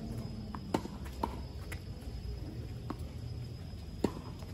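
Tennis ball being struck by racquets and bouncing on a hard court: sharp single pops, the loudest one under a second in and another near the end, with fainter knocks between.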